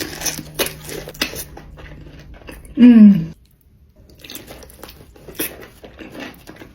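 Close-miked eating: biting and chewing food, in quick crunchy clicks. About three seconds in comes a short, loud hum falling in pitch, then the chewing resumes.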